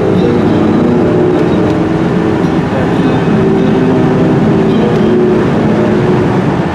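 Steady engine and road noise inside the cabin of a V8 car cruising at constant freeway speed.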